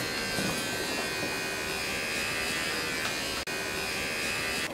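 A small electric motor buzzing steadily, cutting out for an instant about three and a half seconds in and stopping suddenly near the end.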